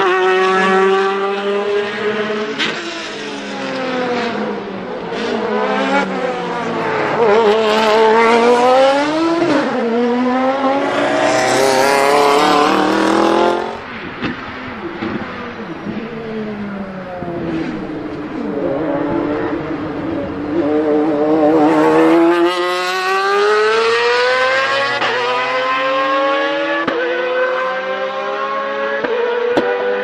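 Lamborghini Murciélago R-SV GT1 race cars' V12 engines revving hard as they pass, the pitch climbing and falling again and again with throttle and gear changes. The sound drops suddenly about halfway through, then builds again toward the end.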